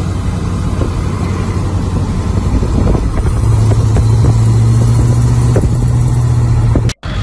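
A car engine running steadily with a low drone that grows louder about three seconds in, over general outdoor noise. The sound cuts out abruptly for a moment near the end.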